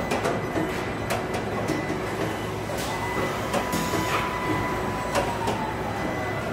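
Car body assembly line machinery: a steady industrial hum with scattered clicks and clanks, and a machine whine that rises to a steady pitch about three seconds in and drops away near the end.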